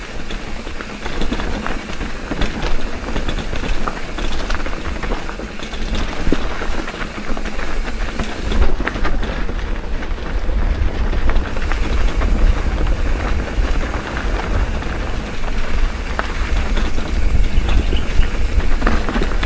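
A mountain bike rattling and clattering over a rough dirt singletrack, with wind buffeting the microphone as a loud, continuous low rumble.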